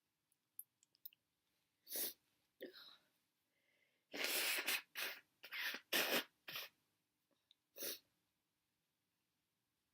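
A person having a sneezing fit: a couple of short breaths and sneezes, then a quick run of loud sneezes from about four to seven seconds in, and one more near eight seconds.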